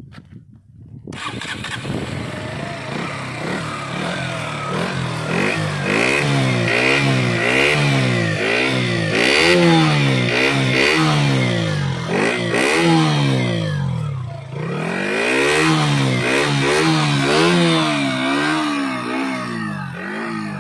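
KTM Duke 125's single-cylinder four-stroke engine revved repeatedly through its exhaust, the pitch climbing and falling back about once a second, with a short drop to idle partway through.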